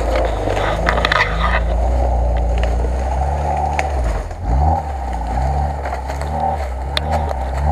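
Off-road 4x4 engine revving up and down under load, the pitch rising and falling with a brief dip midway. Short scraping and cracking noises come about a second in and again near the end.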